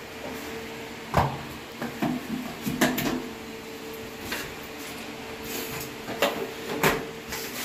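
About half a dozen sharp knocks and clunks, spread over the seconds, as a frameless 10 mm tempered-glass sliding shower door is lifted by a suction-cup lifter and set onto its rollers and rail.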